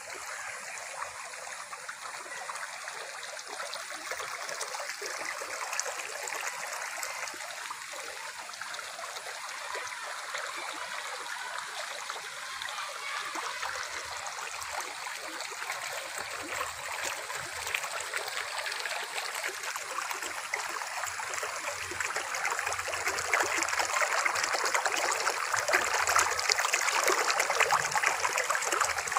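Muddy rainwater runoff flowing fast along a shallow channel over the ground, a steady rush of water that grows louder over the last several seconds.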